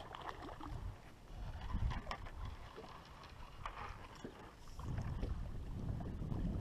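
Water splashing and sloshing beside a small boat as a hooked fish thrashes at the surface and is netted, with a few short sharp splashes. Under it runs a low rumble that grows louder in the last couple of seconds.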